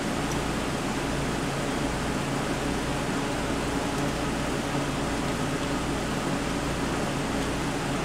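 Steady even hiss with a faint low hum and no distinct tool sounds: workshop room tone.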